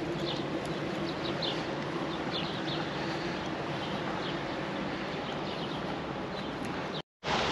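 Steady rush of flowing water, with faint short bird chirps over it. The sound breaks off for a moment near the end.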